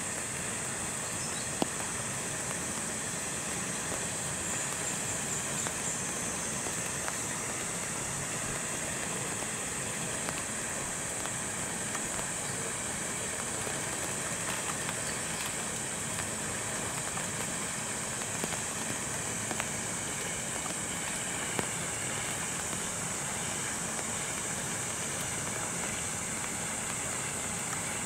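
Steady rain ambience: an even hiss with a constant high-pitched band on top and a few faint ticks.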